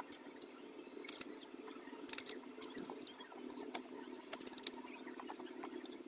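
Steady low hum with scattered light clicks and scratches of a paintbrush and paper being worked as a watercolour wash is laid down.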